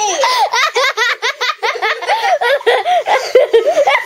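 Children laughing and giggling hard in high-pitched, rapid bursts.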